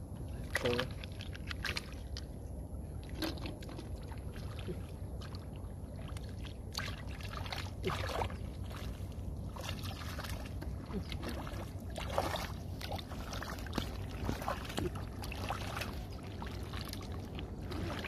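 Hands sloshing and splashing in shallow muddy water, scooping up mud and picking out snails: irregular short splashes and squelches over a steady low rumble.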